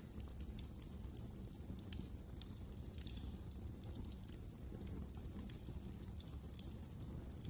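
Wood fire crackling in a fireplace: frequent small irregular snaps and pops over a low steady rumble of the flames.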